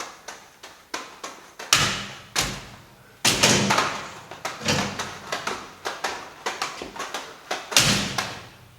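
Juggling balls knocking and clicking against a magnetic juggling machine and in the hands as they are thrown and caught, a quick irregular run of taps with a handful of louder thuds.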